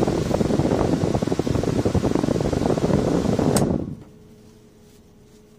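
Rear AC blower of a Toyota Grand New Avanza blowing hard through the vent, with a paper tissue fluttering in the air stream. About three and a half seconds in there is a click and the airflow dies away, leaving only a faint steady hum: the blower cutting out, as it does on speeds 1 and 2 when the blower resistor has burnt open.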